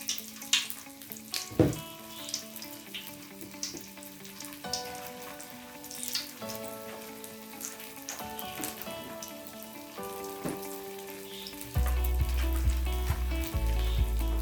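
Oil sizzling and crackling as food deep-fries, under instrumental background music of held notes. Near the end a deep bass comes in and the music gets louder.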